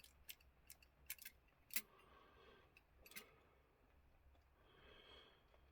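Faint, irregular small clicks of metal parts and tools handled on a clock movement while its gears are checked, about half a dozen spread over the first few seconds.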